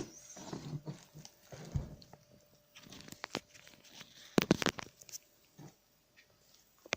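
Plastic parts of the robot vacuum's removed two-in-one dust compartment and water tank being handled: irregular clicks, scrapes and rustling, with a quick cluster of sharp clicks about four and a half seconds in.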